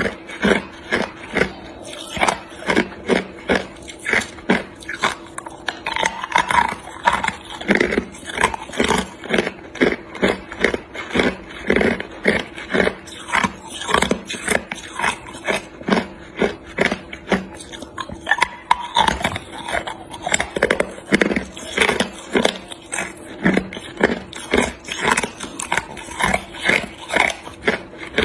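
Hard clear ice cubes being bitten and crunched between the teeth close to the mouth: a steady run of sharp, crisp crunches, a few a second.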